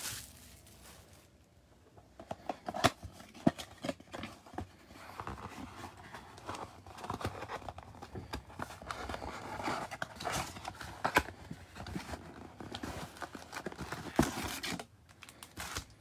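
A cardboard trading-card box (a Panini Prizm mega box) being opened by hand, with its flap pulled open and foil card packs slid out and set down. There are scattered sharp clicks and snaps, and a stretch of rustling and crinkling through the middle.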